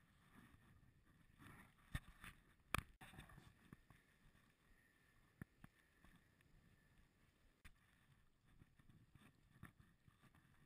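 Faint wind and road rumble picked up by a camera on a moving bicycle, broken by a few sharp knocks, the loudest two about two and three seconds in.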